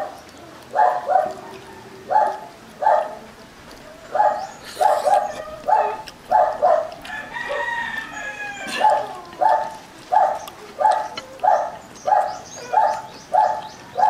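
A dog barking over and over, about three barks every two seconds. About seven seconds in, a rooster crows once, a long call falling in pitch, while the barking pauses.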